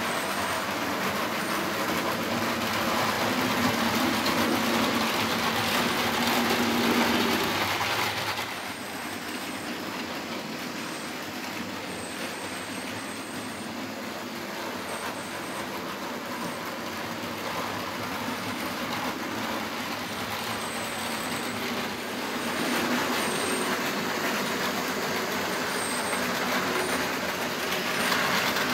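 Model trains running on a layout: motor hum and wheels rumbling along the track. The sound is louder for the first eight seconds or so, drops, then picks up again about two-thirds of the way through.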